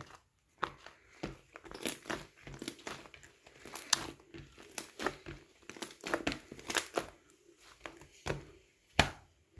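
Black slime being kneaded, pressed and stretched by hand, giving a stream of irregular sticky clicks and pops. The sharpest pop comes about nine seconds in.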